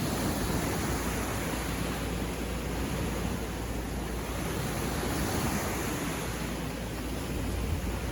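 Ocean surf washing onto the shore: a steady rushing wash of waves with no single sharp break standing out.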